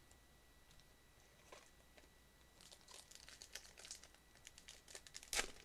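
Foil wrapper of a Japanese Pokémon card booster pack being torn open and crinkled by hand. It is faint at first, then crackles in a quick run from about halfway, with the loudest tear near the end.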